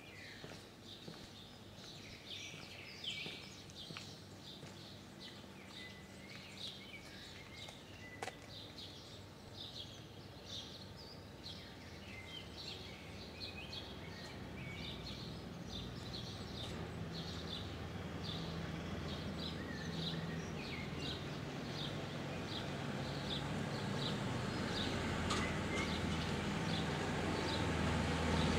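Small birds chirping and singing in short, high, repeated calls. A low rumble of road traffic builds up and grows louder through the second half.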